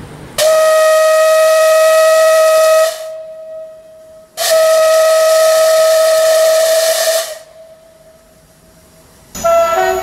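Steam locomotive whistle blown in two long, steady blasts with a hiss of escaping steam, the second starting about a second and a half after the first ends and a faint whistle tone lingering between them. Near the end another loud pitched tone begins.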